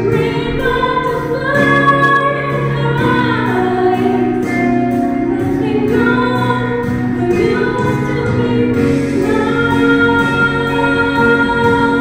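A woman singing solo into a microphone, holding long notes that slide from pitch to pitch, over a sustained instrumental accompaniment.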